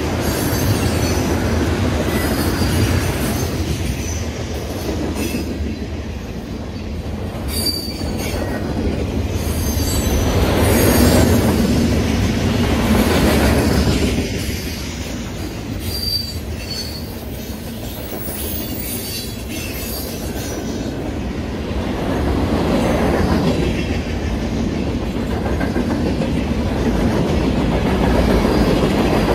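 Union Pacific manifest freight train's cars rolling past close by: a steady rumble and clatter of steel wheels on the rails that swells and eases as the cars go by, with a few brief high wheel squeals.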